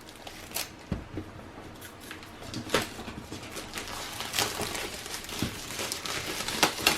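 Cardboard box and packaging being handled and opened: scattered taps and clicks with rustling, busier in the second half.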